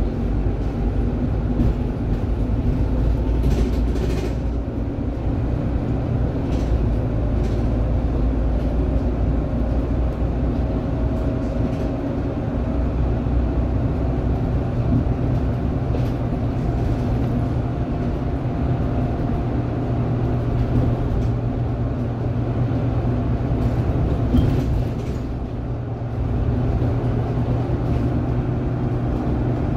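City bus driving at speed, heard from inside the front of the passenger cabin: a steady low engine and road rumble with a faint whine, and a few brief rattles.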